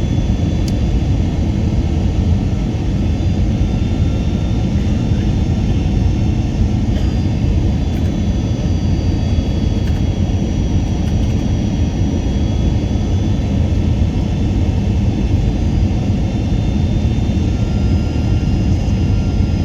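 Steady, loud rumble of an airliner's engines and airflow during its approach, with a few faint steady high tones over it.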